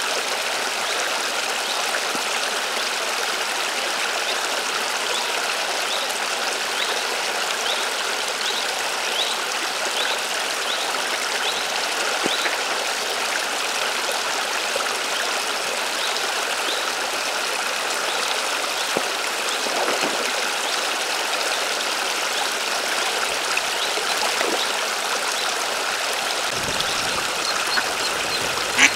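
Steady splashing and trickling of water spilling down a low concrete wall into a pond, with a brief knock near the end.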